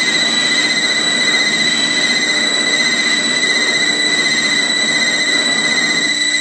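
Live harsh noise music played on electronic gear: a dense, loud wall of noise with steady piercing high tones over it. Near the end the wall thins and lower steady tones come through.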